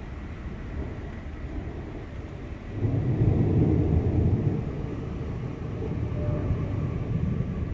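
Thunder: a deep rumble breaks in suddenly about three seconds in, swells for a couple of seconds, then rolls on more softly.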